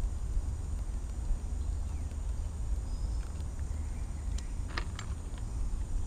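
Low, uneven rumble of wind on the microphone, with a few faint light clicks about four to five seconds in.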